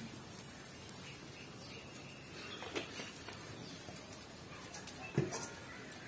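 Quiet outdoor background with a few light knocks of cooking utensils, the sharpest about five seconds in.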